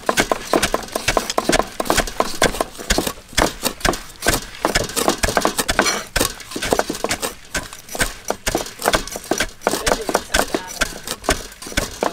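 Cleavers chopping fresh leaves on thick wooden chopping blocks: a fast, uneven run of sharp knocks, several a second, from more than one cleaver at once.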